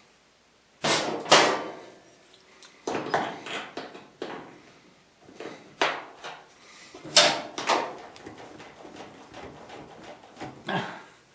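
A dryer power cord being pushed into its holding clamp on the back of the dryer: a series of irregular knocks and rattles of the cord and clamp against the dryer, the loudest about a second in and again about seven seconds in.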